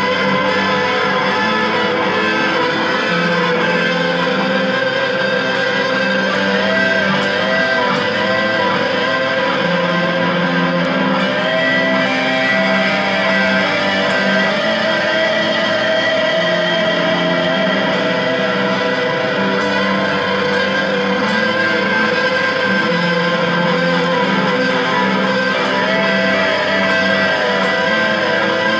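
Electric guitar improvising in a minor key: sustained notes, with several held notes wavering in vibrato.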